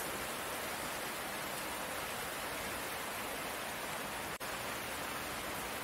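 Steady rain, an even hiss without distinct drops, that cuts out for an instant about four seconds in.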